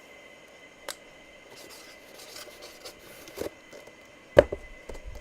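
Writing on a box, a faint scratching with a few light clicks, then a sharp knock about four seconds in, which is the loudest sound.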